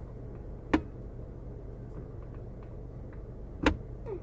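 Two sharp clicks about three seconds apart over a steady low hum.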